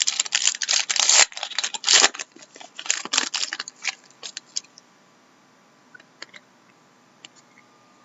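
2013-14 Panini Select hockey cards and their pack wrapper being handled: crinkling and rustling for about four seconds, then only a few light clicks and taps.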